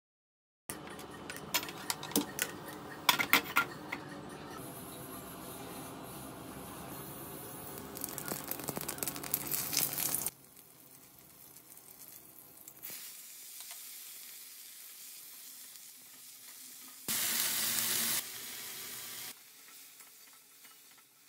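Hot oil sizzling in a steel wok as whole spices and a green chilli fry, and cut green beans and diced potatoes fry while a metal spatula stirs and scrapes against the pan. Sharp clicks of the spatula come in the first few seconds, and there is a short louder burst of sizzling about three-quarters through.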